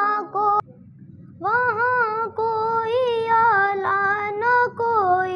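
A girl singing a naat solo, drawing out long notes that bend and waver in pitch, with a short break for breath about a second in.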